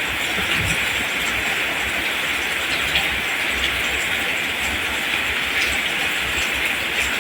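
Steady heavy rain falling on a rice field: an even hiss with scattered drop ticks and a low rumble underneath.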